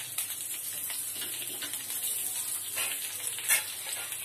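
Oil sizzling in a pan with shallots, dried red chillies and urad dal frying in it: a steady hiss with a few sharp pops, the loudest about three and a half seconds in.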